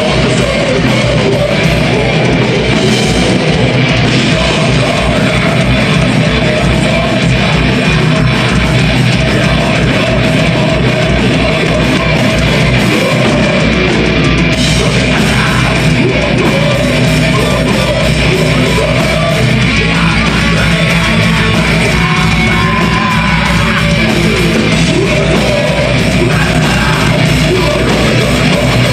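Live melodic death metal band playing: harsh screamed vocals over loud distorted guitars and fast drumming.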